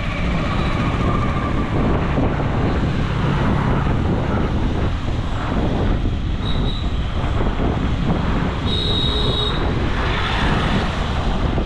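Heavy road traffic with lorries going by, a loud, steady rumble, with short high squeals about six and nine seconds in.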